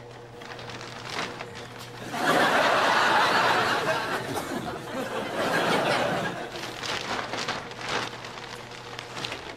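Studio audience laughing, swelling up about two seconds in and dying away after a few seconds, over light rustling and crackling of a plastic bin bag.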